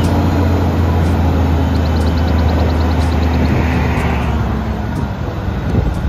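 Diesel engine of an eight-wheel tipper truck running steadily with a deep hum while the tipper body is hydraulically raised. A bird chirps quickly several times about two seconds in.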